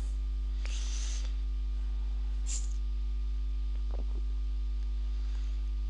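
Steady low electrical hum with a buzzing row of overtones, unchanging throughout, with a couple of faint short hisses and a faint tick.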